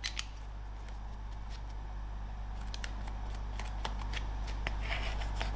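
Cardboard being cut by hand: a scatter of light clicks and scraping, over a steady low hum.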